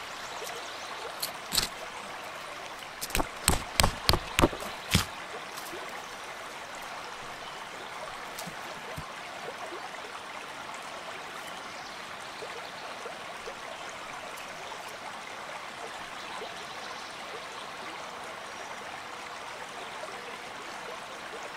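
A tent stake being knocked into forest ground: two single sharp knocks, then a quick run of about eight. Behind it, a steady rushing like a nearby stream.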